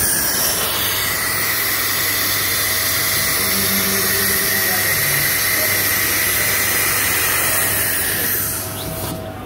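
Loud, steady hiss of compressed air from the CNC router's pneumatic automatic-tool-change spindle during a tool change, cutting off abruptly near the end, over a steady low machine hum.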